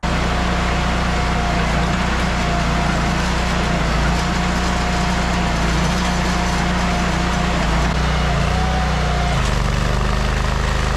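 Ditch Witch compact tracked trencher running steadily under load as it digs, with a thin steady whine above the engine. About nine seconds in, the engine note shifts as the digging chain is lifted out of the trench.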